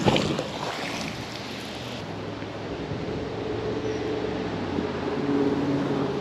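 A brief knock, then a steady engine hum with wind on the microphone; the hum swells from about three seconds in.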